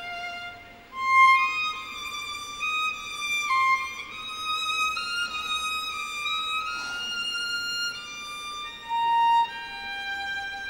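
Solo violin playing a slow melody, one note at a time, each note held for about half a second to a second.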